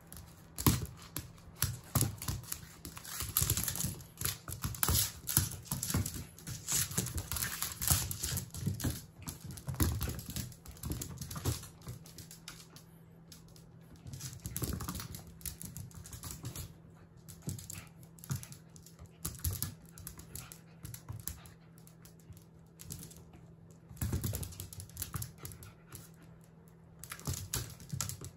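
A Jack Russell Terrier puppy's claws clicking and scrabbling on a wooden floor in quick flurries as it chases and pounces on a wand toy, with quieter pauses between the bursts of play.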